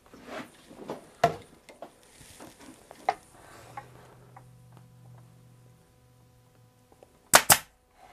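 Fabric rustling and handling clicks as a dust cover is smoothed over a chair frame, then near the end a pneumatic upholstery stapler fires twice in quick succession, two sharp loud shots.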